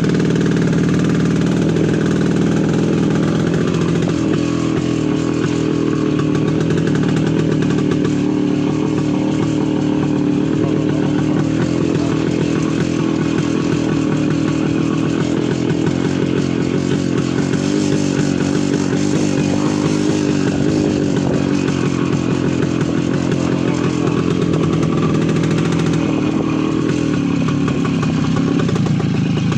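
Voskhod 3M motorcycle's single-cylinder two-stroke engine running steadily, its pitch rising and falling slightly.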